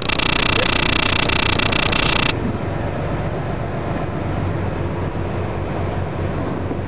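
Steady low drone of the charter boat's engine under wind noise on the microphone. A louder rush of hiss fills the first two seconds and cuts off abruptly.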